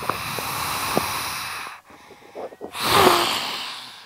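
A performer's two long, harsh breathy hisses, a monster-voice effect; the second, about three seconds in, is the louder.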